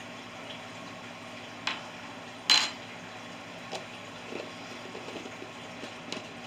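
Kitchen utensils and containers clinking and knocking against the stainless pot and countertop while seasoning is added: a few sharp clinks, the loudest about two and a half seconds in, then a few light taps, over a steady low hum.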